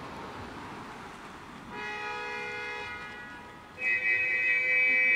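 A vehicle horn sounding twice, two long steady blasts with no change in pitch: the first starts a little under two seconds in, and a louder second one starts just before the four-second mark and holds on.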